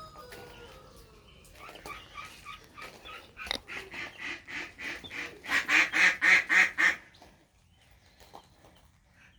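Poultry giving a rapid run of harsh, repeated calls, about three a second, that grows louder over several seconds and then stops abruptly.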